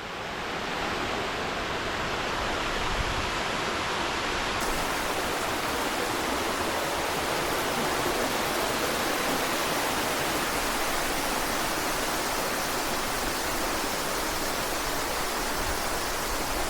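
Water pouring down an 80-foot waterfall: a steady, even rush of falling water.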